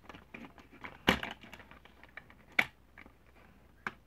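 Plastic clicks and knocks of a toy car-hauler truck being handled as its grey plastic deck is worked loose and slid out, with two louder knocks about a second in and about two and a half seconds in.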